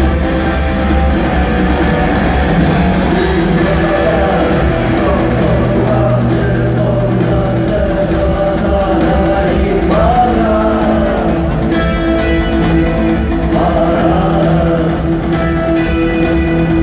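Rock band playing with singing over guitars, steady and loud throughout.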